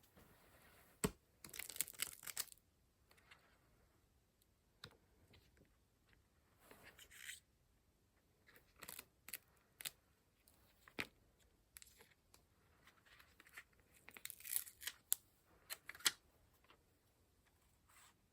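Paper rustling and tearing in short bursts, with a few sharp taps in between.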